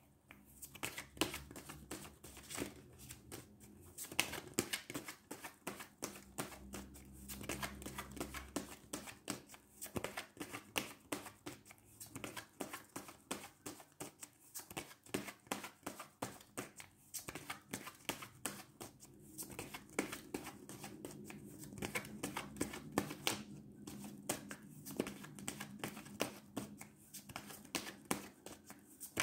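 A deck of tarot cards being shuffled by hand: a rapid patter of soft card flicks in runs of a couple of seconds, broken by short pauses.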